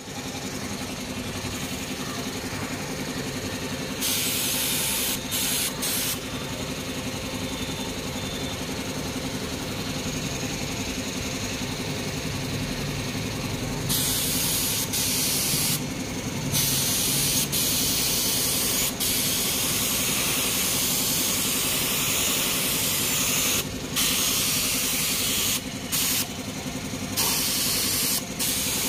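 Paint spray gun hissing in repeated bursts of a few seconds each, the first about four seconds in and the longest through the middle, as paint is sprayed onto a motorcycle mag wheel. Under it an air compressor runs with a steady mechanical hum.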